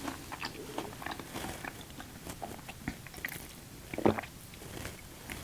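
Close-miked chewing and biting of a chicken Caesar wrap heavy with dressing: irregular soft crunches and mouth clicks, with one louder one about four seconds in.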